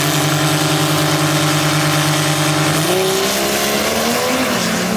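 Diesel pickup truck engines held at steady high revs on a drag strip's starting line. About three seconds in the engine note jumps and then rises and falls.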